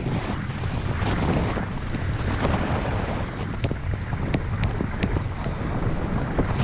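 Wind buffeting a GoPro action camera's microphone on a snowboard descent at about 20 mph: a steady low rushing, swelling now and then, mixed with the hiss of the board sliding over snow. A few light ticks in the second half.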